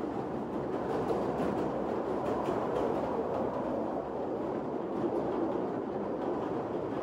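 Narrow-gauge open-air passenger train running along the track, heard from inside the open carriage: a steady rumble of wheels on rail with faint scattered ticks.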